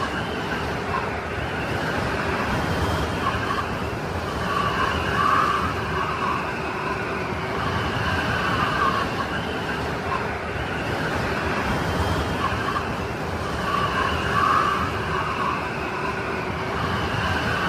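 Blizzard wind: a steady rushing hiss with a faint howling whistle that rises and falls, swelling in gusts every few seconds.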